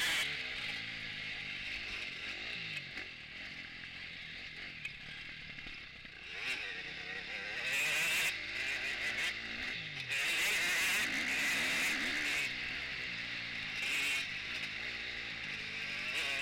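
Onboard sound of a KTM 250 four-stroke motocross bike, engine revving up and down with wind noise over the camera. The engine is quieter for a few seconds early on, as if off the throttle, then pulls hard again from about six seconds in, with brief dips at gear changes or landings.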